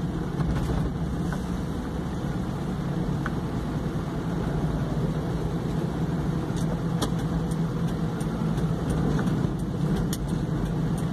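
Car driving on a wet road, heard from inside the cabin: a steady low engine hum and tyre noise, with a few faint ticks.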